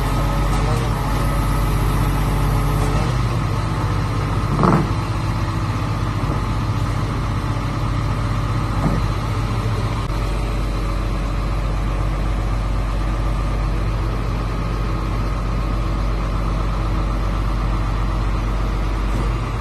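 Engine of an XCMG XZ420E horizontal directional drilling rig running steadily, with a sharp knock about five seconds in and a fainter one about nine seconds in.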